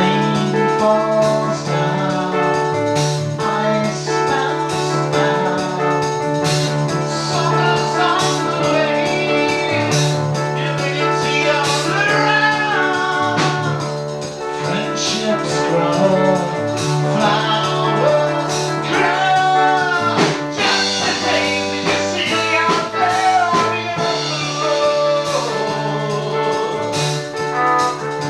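A band playing a song: held keyboard chords under a sung melody, with drum hits keeping time.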